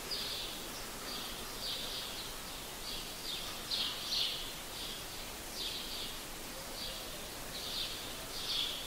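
Birds chirping: a run of short, high chirps, one or two a second, over faint steady outdoor background noise.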